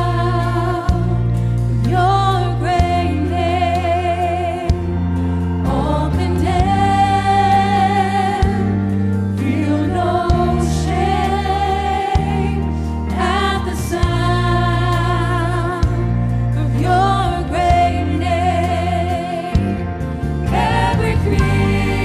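A woman singing a gospel song into a handheld microphone, holding long notes with vibrato, backed by singers and a band whose low sustained chords change every couple of seconds.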